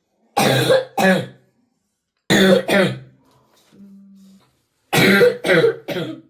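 A boy coughing in fits: about seven harsh coughs in three bursts of two, two and three. This is the chronic cough he has had for eight years, which treatment has not cured.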